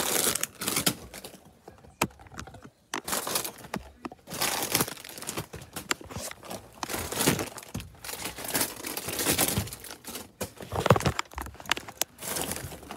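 Plastic bags and food packaging rustling and crinkling as they are rummaged through, with scattered clicks and knocks of things being moved.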